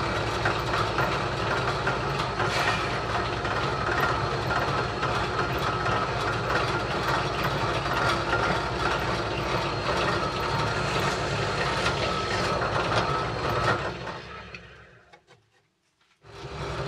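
Benchtop drill press running steadily as it drills holes through thin birch plywood strips held in a jig. About fourteen seconds in it is switched off and winds down to near silence, and a machine is running again just before the end.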